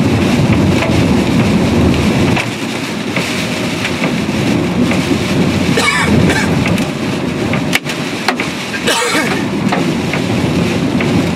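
Large hail pelting a moving car's roof and windshield, heard from inside the cabin: a dense, continuous clatter of hailstones over the car's road noise.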